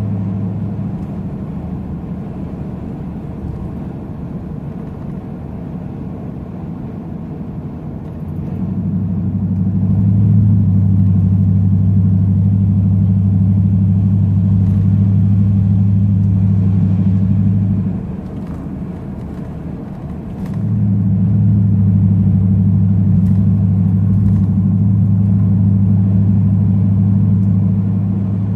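Pickup truck's engine and exhaust droning steadily while driving, heard from inside the cab; the drone swells louder about 8 seconds in, eases off briefly about 18 seconds in, and swells again about 20 seconds in as the throttle is applied. The exhaust has a hole in the tips and a broken hanger.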